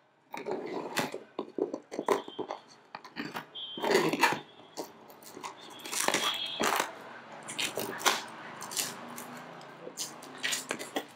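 Plastic shrink-wrap on a cardboard box being pierced with a screwdriver tip and peeled off by hand: irregular crinkling, crackling and scraping, with a couple of short squeaks.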